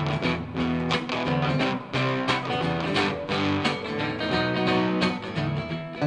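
A live band playing an instrumental passage without vocals: a strummed acoustic guitar, an electric guitar and a bass guitar together, in a steady rhythm.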